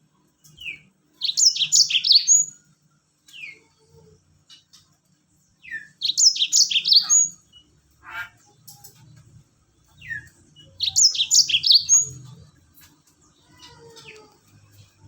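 Yellow-fronted canary (Mozambique) singing three short, fast phrases of high, falling notes about five seconds apart, with softer single chirps between them, over a faint low hum.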